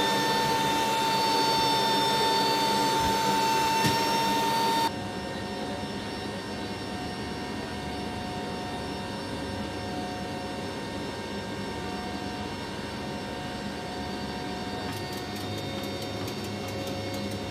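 Turboprop engines of an MC-130J Commando II heard from inside its cargo hold: a steady drone with several held tones. The level drops suddenly about five seconds in, and faint rapid clicks come in near the end.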